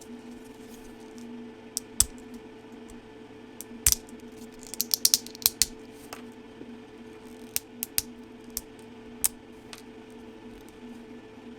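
A steady machine hum, with scattered sharp clicks and snaps over it and a quick run of them about five seconds in.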